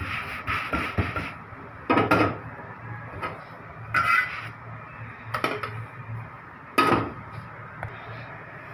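A metal utensil clattering and scraping against a flat iron tawa as rotis are turned on it: four or five sharp knocks a second or two apart, over a steady low hum.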